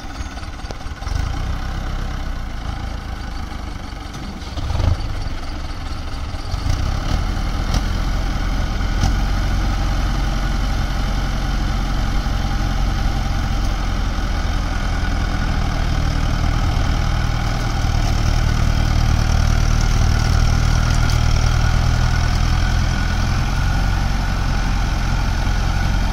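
Tractor diesel engines running hard under load while towing a Mahindra tractor out of mud. The engine sound swells about six seconds in and holds steady and loud.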